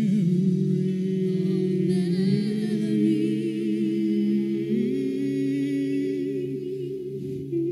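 A man and a woman singing long, slow held notes with vibrato, close to humming, shifting to new notes a couple of times, with more voices blending in beneath.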